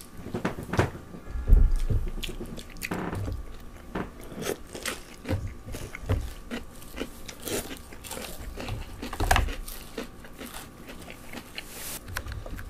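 Close-up mouth sounds of eating fried chicken and pickled radish: biting and chewing with irregular crunches, loudest about a second and a half in and again about nine seconds in.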